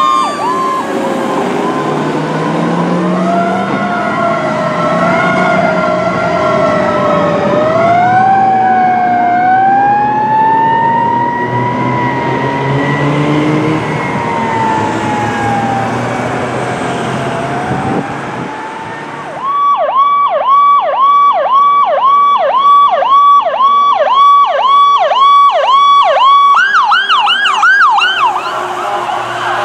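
Fire apparatus sirens: for the first eighteen seconds a fire engine's electronic siren wails in slow rising and falling sweeps as the truck moves off. Then, after a brief drop, a brush truck's siren yelps in fast, even up-and-down cycles, about two a second, quickening and rising in pitch near the end.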